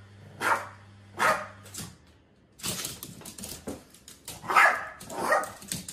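Boston terrier barking, about five short barks with a pause in the middle. A low steady hum underneath stops about two seconds in, and a second or so of rapid clattering fills the pause.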